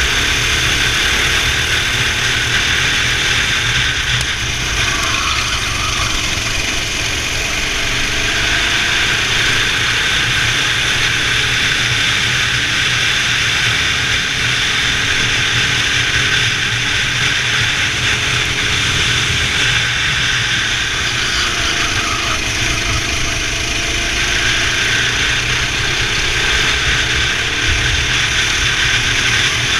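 Racing kart engine running continuously at speed, its pitch dropping and climbing back twice, about five seconds in and again about twenty seconds in, as the throttle eases off and opens up again.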